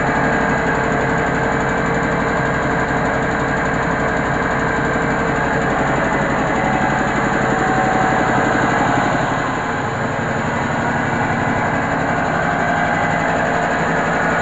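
Mobile rice mill running: its diesel engine and huller machinery running steadily at working speed, a continuous mechanical drone with a fast, even beat, dipping slightly in level about ten seconds in.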